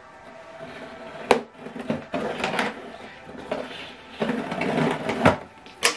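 Printer packaging being handled and unpacked: cardboard and wrapping rustling, with a few sharp knocks, the loudest about a second in and again near the end.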